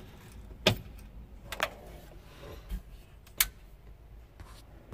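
Three sharp clicks spread over a few seconds from switches being flipped on the sprayer's cab console as power is put to the Raven GPS monitor.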